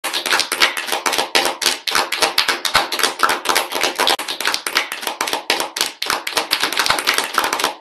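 Applause: many people clapping, starting suddenly and keeping up a dense, steady patter.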